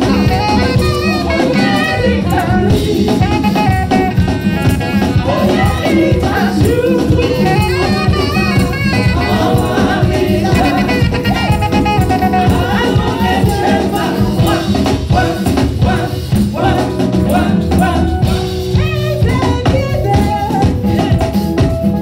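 Live gospel praise-and-worship music: a woman leads the song on a microphone, with backing singers and a steady drum beat.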